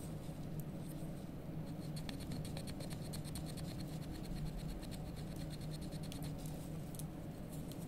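Steel wax knife shaving a block of dental carving wax in a rapid run of short scratchy strokes. The strokes start about one and a half seconds in and stop about seven seconds in, with the wax being pared down to shape a tooth crown.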